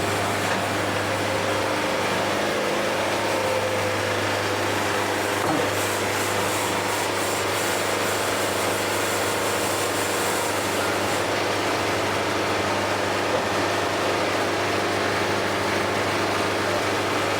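Wood-Mizer portable band sawmill blade cutting steadily through a log, over the steady hum of the mill's engine.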